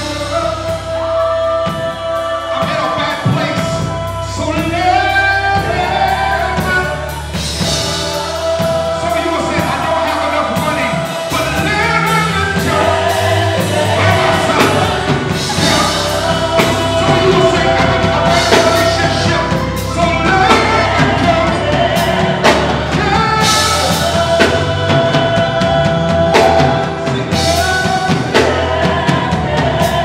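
Live gospel music: voices singing into microphones, a lead singer with backing vocalists, over a band with bass and drums.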